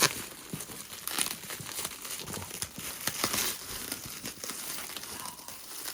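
Crinkling and tearing of parcel packaging, irregular crackles and rustles as the tape and wrapping of a heavily taped box are pulled and ripped at by hand.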